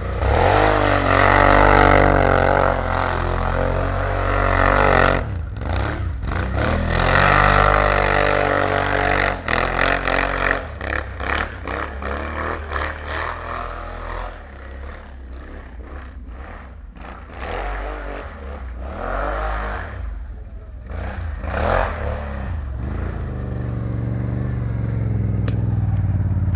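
Bombardier 800 cc ATV's V-twin engine revving in repeated bursts as it accelerates through snow. It grows quieter as the quad moves off in the middle, then louder as it comes back close near the end.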